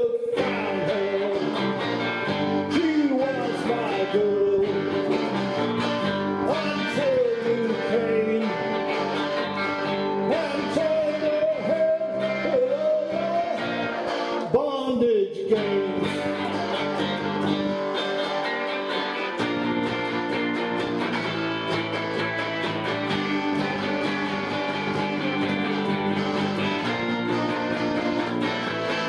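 Punk rock song by a guitar band with drums, playing steadily and loudly. During the first half a lead line slides and bends in pitch over the chords.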